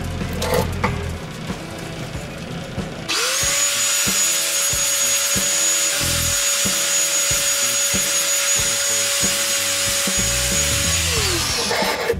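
Skil angle grinder switched on, spinning up to a steady whine with a harsh grating hiss as it works against steel for about eight seconds, then switched off and winding down.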